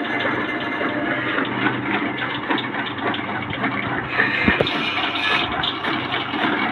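Electric chaff cutter running steadily, its belt-driven blades chopping green fodder as it is hand-fed through the feed rollers, with a constant motor hum under the chopping.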